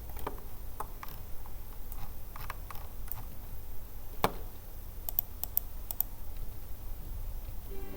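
Irregular computer keyboard keystrokes and clicks, spaced out rather than fast typing, over a low steady hum.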